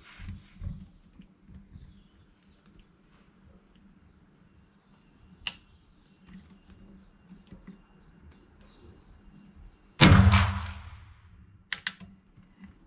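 A single muzzle-loading rifle shot about ten seconds in: a sharp, loud report with a long echoing tail in the covered range. A lone click comes about halfway, and two quick clicks follow a couple of seconds after the shot.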